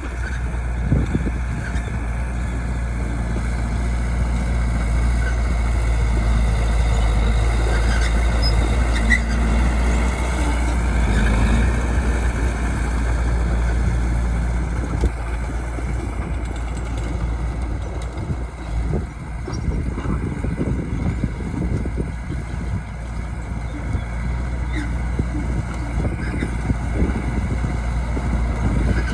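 Bulldozer diesel engine running steadily with a deep drone, its pitch briefly rising and falling around eleven seconds in.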